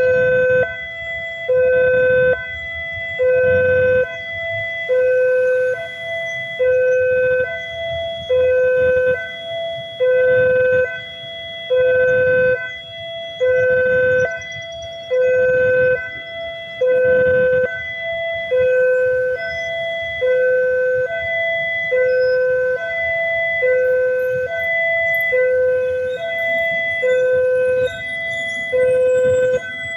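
Railway level-crossing warning alarm sounding a repeating two-tone electronic chime, a lower and a higher note alternating about every second and a half.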